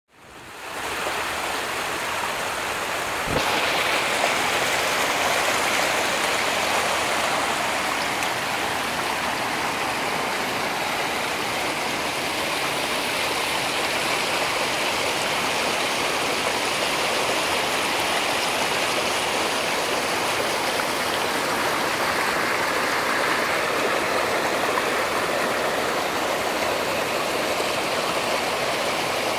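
Shallow mountain stream running over rocks into a pool: a steady rush of flowing water. It grows a little louder about three seconds in.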